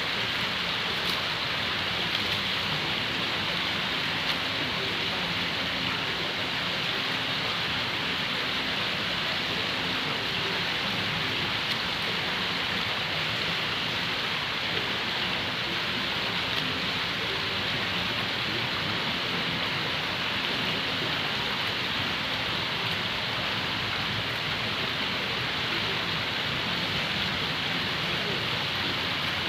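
A steady, even hiss that does not change in level.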